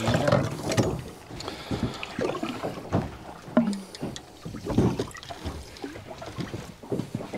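Sea water splashing and slapping irregularly at a small boat's side as a hooked tope shark is drawn up to the surface.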